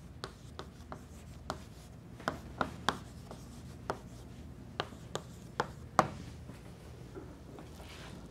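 Chalk writing on a chalkboard: about a dozen sharp taps and short scrapes as the chalk strikes the board, the loudest one about six seconds in, after which the writing stops.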